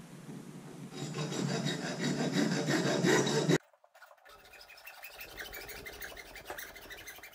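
Hand hacksaw cutting through a PVC pipe coupler in steady back-and-forth strokes. The rasping starts about a second in and grows louder, breaks off abruptly partway through, then picks up again more quietly.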